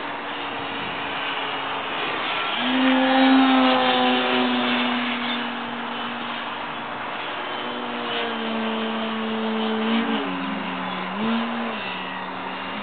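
Motor and propeller of a radio-controlled scale model of a Dyke Delta in flight, giving a steady droning tone. The tone rises and gets louder about two and a half seconds in, holds, then drops in pitch near the end with a brief rise and fall.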